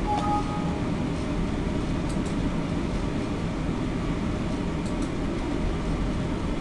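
Steady low background rumble of room tone, with a brief faint two-note tone right at the start and a few faint clicks about two seconds in and again around five seconds, consistent with mouse clicks ending a slideshow and stopping a recording.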